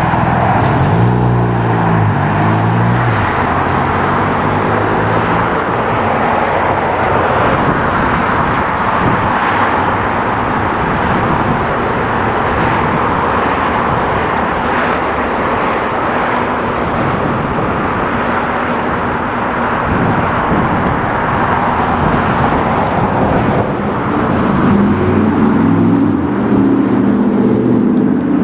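Jet airliner engines: a loud, steady rush of engine noise, with engine tones sliding in pitch about a second or two in and a set of humming tones near the end.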